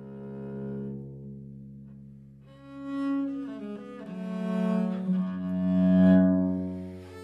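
Seven-string bass viol (viola da gamba), built after an M. Hoffmann 1688 model, played with the bow. A long low note dies away, then about two and a half seconds in a phrase of several notes begins and swells louder.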